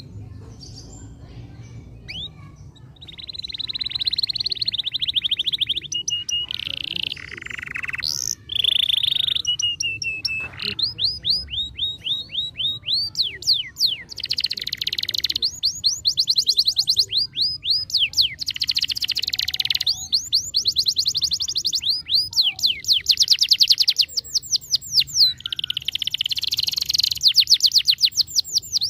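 Canary singing a long song of rapid trills and runs of quickly repeated sweeping notes, starting about three seconds in.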